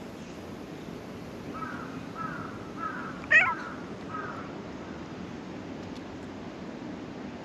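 Black stray cat mewing: a string of about five short mews, the loudest one about halfway through swooping up and back down in pitch.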